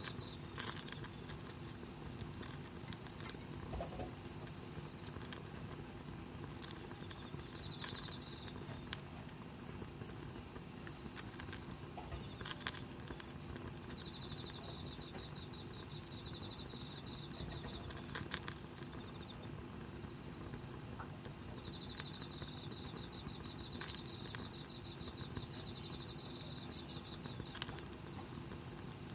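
Wood campfire burning with a steady hiss and scattered crackles and sharp pops. A high, fast-pulsing trill comes and goes several times.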